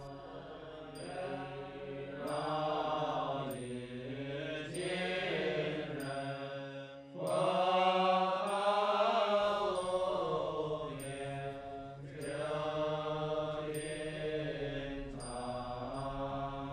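Buddhist monks chanting a slow, drawn-out mantra together before a meal. A light, high tap sounds about once a second, and the chant grows louder about seven seconds in.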